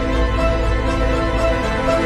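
Film-score music: slow, sustained chords held over a steady deep bass, with no beat or sudden events.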